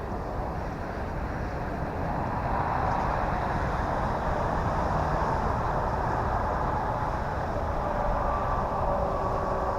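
Electric motor and propeller of an E-flite T-28 Trojan RC plane whining in flight, a steady hum that grows a little louder a few seconds in, over a low rumble of wind on the microphone.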